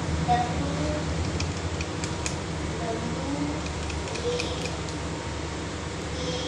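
A few light clicks and scrapes as wet ground masala paste is emptied from a steel mixer-grinder jar onto a steel plate, over a steady low hum.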